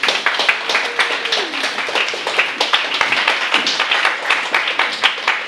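A small audience applauding, many separate hand claps heard distinctly.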